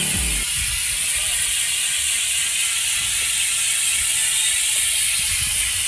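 Bicycle rear freehub ratchet buzzing steadily as the rear wheel spins freely, its pawls clicking in a fast, even rattle.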